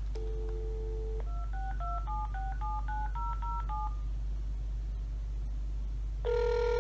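Cordless phone on speaker: a dial tone for about a second, then about ten quick keypad (DTMF) tones as a phone number is dialled. Near the end the ringback tone starts as the call rings through.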